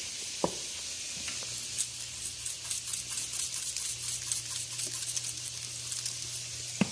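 Dry seasoning being shaken from a spice shaker onto a raw steak, a light irregular rattle and patter of grains over a steady hiss, with a low steady hum coming in after about a second and two short sharp taps, one near the start and one near the end.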